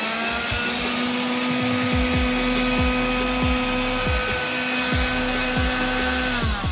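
Electrolux Ergorapido ZB3501 handheld vacuum motor finishing its spin-up, running steadily with a high whine, then winding down near the end as it is switched off. A regular low beat from background music runs underneath.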